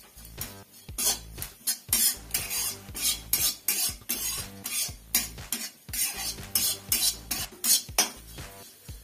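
A metal spatula scraping and stirring dry grated coconut around a metal wok as it roasts, in repeated sharp scrapes roughly two a second.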